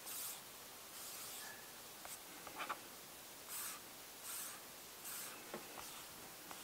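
Fingertips swiping and tapping on a tablet's glass touchscreen: about five faint, brief swishes with a few light taps between them.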